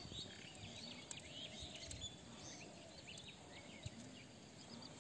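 Faint outdoor rural ambience: many short, high chirps scattered through it over a low hiss, with a few soft clicks.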